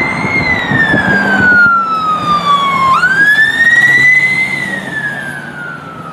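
Ambulance siren sounding a slow wail. The pitch falls over about three seconds, sweeps back up, and starts falling again, growing fainter near the end as the ambulance pulls away.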